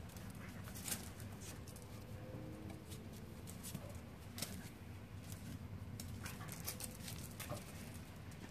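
Icelandic dogs' paws and claws clicking and pattering irregularly on concrete patio tiles as adults and puppies scamper and play.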